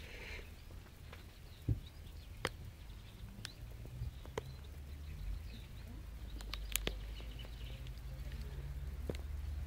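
Kittens playing: scattered light taps and clicks of paws and bodies moving about, a few sharp ones about two and a half and seven seconds in, over a low steady hum.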